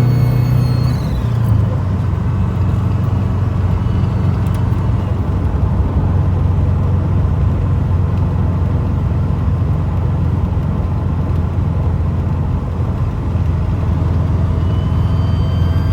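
2002 Subaru WRX's turbocharged flat-four engine running with a steady low hum, plus a high whistle that falls in pitch and fades about a second in and comes back near the end. The uploader takes the noise for a boost or vacuum leak on the driver's side.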